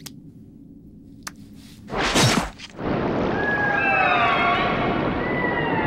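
Cartoon sound effects: a sudden loud whooshing crash about two seconds in, followed by a loud sustained rushing noise with several wavering, gliding tones over it.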